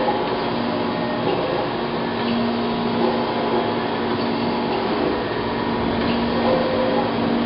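Chevalier FSG-1632 CNC surface grinder running: a steady mechanical hum with a low tone that swells twice.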